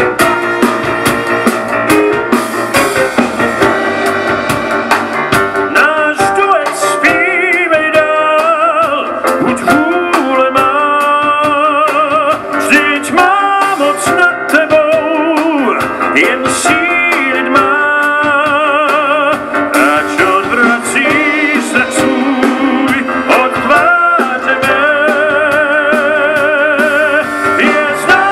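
Live amplified singing with wide vibrato, for much of it a man's voice, backed by a string quartet and a drum kit keeping a steady rock beat.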